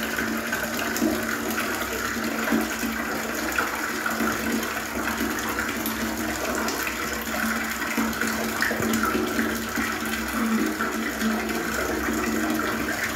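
Water running and splashing steadily while a dog is bathed.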